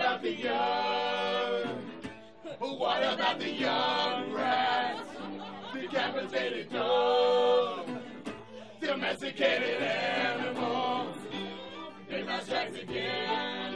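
Several voices singing together in chant-like phrases of a second or two with short breaks, over a steady low accompaniment from acoustic string instruments.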